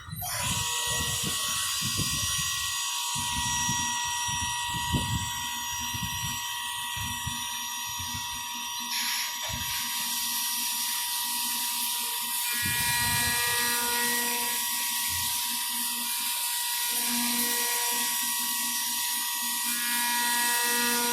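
CNC milling machine cutting a 7075 aluminium block: a steady high whine from the spindle over a hissing cutting noise, the hiss growing louder about ten seconds in.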